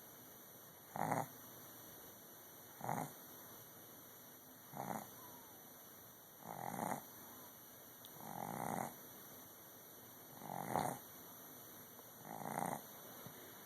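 A dog snoring loudly, one snore about every two seconds, seven in all.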